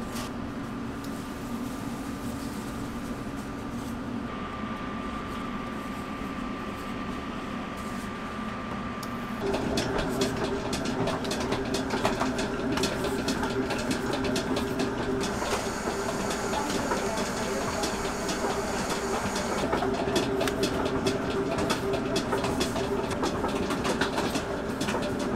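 Steady hum of kitchen machinery that steps up louder about nine seconds in, joined from then on by a constant patter of small clicks and crinkles from gloved hands and a plastic piping bag squeezing filling into donuts.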